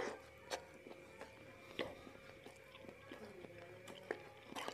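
Faint chewing of a mouthful of beef burger, with a few soft mouth clicks spaced out over a steady faint hum.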